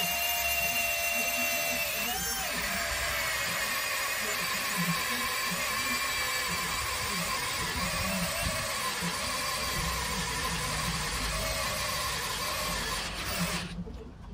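A small electric motor running at a steady speed with a high whine. Its pitch wobbles briefly about two seconds in, and it stops near the end.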